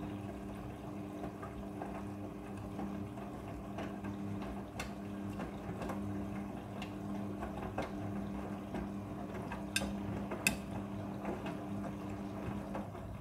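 Front-loading washing machine running its prewash: a steady hum with water moving inside, and a few sharp clicks, once about five seconds in and twice near ten seconds.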